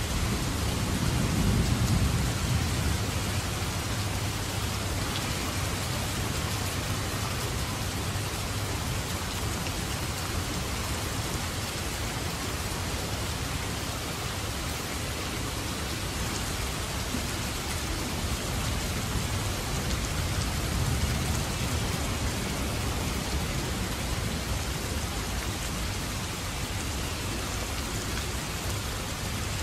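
Heavy downpour of rain hissing steadily, with low rolls of thunder rumbling under it, strongest about two seconds in and again about two-thirds of the way through.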